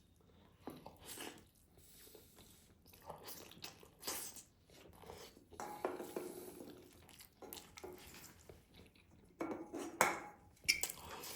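Close-miked eating of rice and meat: irregular chewing and biting sounds, with a few sharp clicks of a utensil against a plate near the end.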